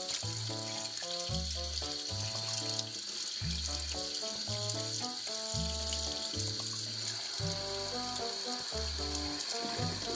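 Tap water running steadily into a stainless-steel kitchen sink while gutted fish are rinsed, under background music with a steady beat.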